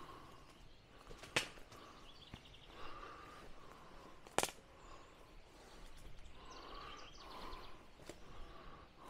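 Footsteps pushing through overgrown brush and fallen branches: rustling and crunching of dry debris, with two sharp snaps of sticks about one and a half and four and a half seconds in.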